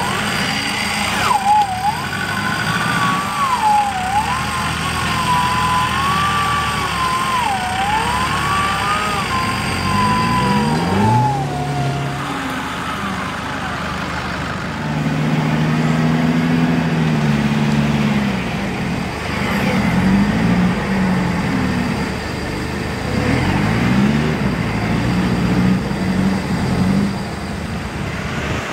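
A high wavering whine for the first dozen seconds, then an off-road 4x4's engine revving several times, its pitch rising and falling as it works through deep mud.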